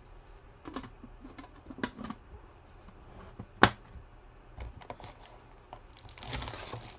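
Scattered light taps and clicks of things handled on a table, with one sharper click about halfway through. Near the end a steady rustling begins as hands take hold of a cardboard trading-card box.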